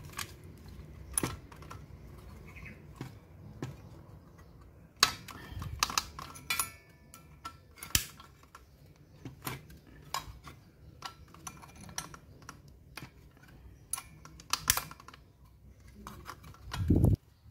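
Irregular metallic clicks and clanks of a wrench working at the blade nut of a handheld circular saw, with the metal saw body being handled. The nut is too tight to come off. A heavier low thump comes near the end.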